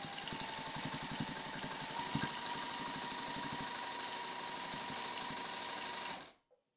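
Domestic sewing machine running at a steady speed, stitching through the layers of a quilt with rapid, even needle strokes and a faint motor whine. It cuts off suddenly a little over six seconds in.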